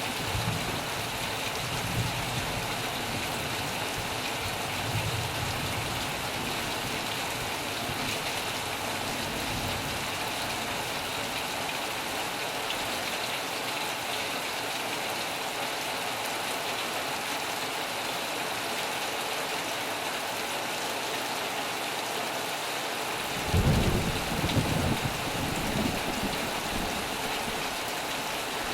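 Heavy rain falling steadily on a metal roof, with a loud low thunder rumble about three-quarters of the way through.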